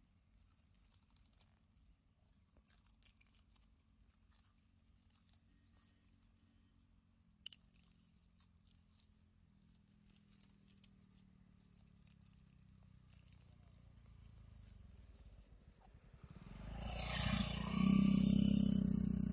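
Mostly quiet at first with a few faint clicks. Then a motorcycle engine approaches, growing louder over several seconds, and passes close by near the end, where it is loudest.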